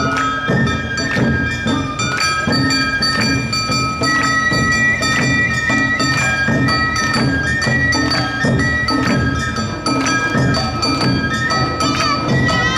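Live Awa Odori festival music: bamboo flutes holding long high notes over a steady beat of drums and metallic strikes from a hand gong.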